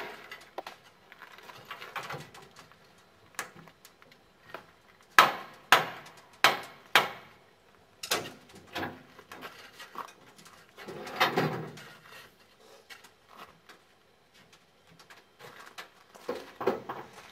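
Sharp metallic clanks and knocks from crew working in the cab of a steam tank locomotive (FS Gruppo 880) being fired up, in irregular runs of several strikes, with a longer, rougher noise about eleven seconds in.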